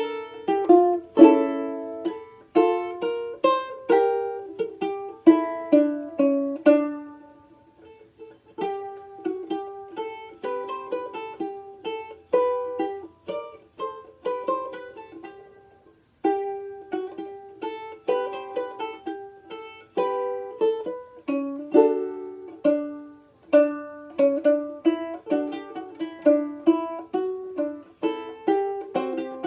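Outdoor tenor banjolele in gCea tuning being played: bright plucked notes that die away quickly, strummed chords at first, then picked single-note lines, with a short break about a quarter of the way in and another near the middle.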